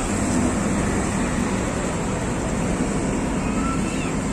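Steady rumble of heavy diesel trucks driving along the harbour pier as they come off a ferry, with a few faint, brief squeals near the end.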